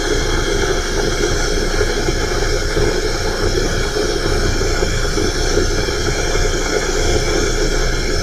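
Shinko steam turbine during its start sequence: a steady, loud hiss of steam with a machinery hum and several steady high tones running through it.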